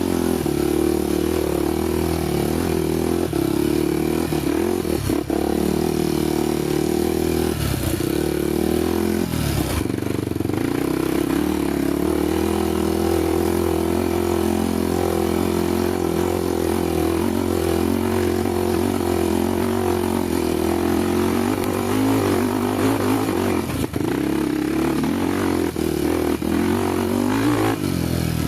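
Honda XR250 Tornado's single-cylinder four-stroke engine running under way on a dirt trail. The engine note rises and falls with the throttle, with some rattling from the rough ground.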